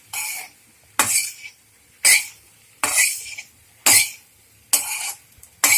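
A spoon scraping and knocking against a kadhai while stirring spiced potato filling, a stroke about once a second.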